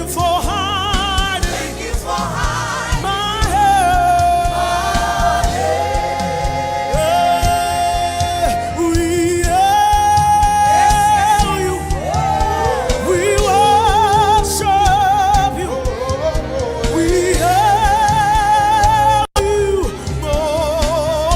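Gospel worship music: a band with a steady bass under singers holding long, wavering notes with vibrato and sliding between pitches. The sound cuts out for an instant near the end.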